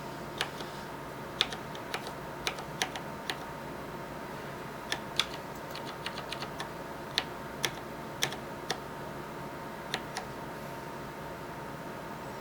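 Keys of an Infinity ErgoDox mechanical keyboard being pressed one at a time, as sharp separate clicks at irregular intervals, some in quick little runs, over a faint steady hum.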